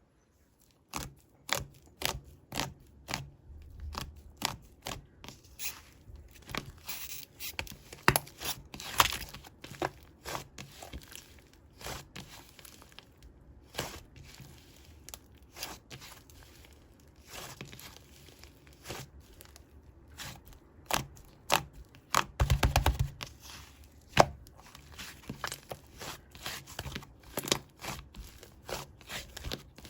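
Fluffy slime being squeezed, poked and stretched by hand, making a stream of sticky pops and crackles, with a quick rattling run of pops a little after twenty seconds in.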